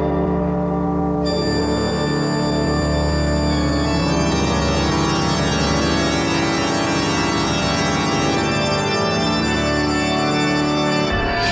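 Organ music in a haunted-house style: held, sustained chords that shift slowly, the low bass notes dropping out just before the end.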